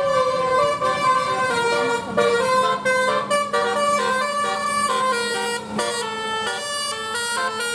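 Bus telolet horn, a multi-tone air horn, playing a quick tune of stepped notes, with a steady low tone underneath from about two seconds in.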